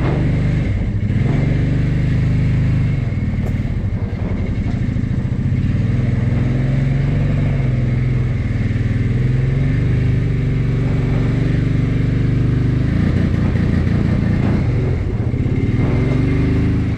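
A vehicle engine running steadily at moderate speed, its pitch drifting slightly up and down as it works.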